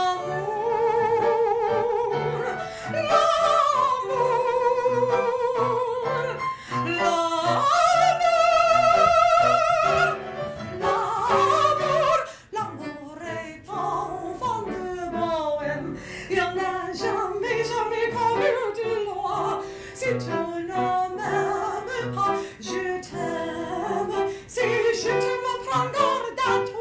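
A woman singing a Broadway-style show tune into a handheld microphone, holding long notes with vibrato, loudest about eight to ten seconds in.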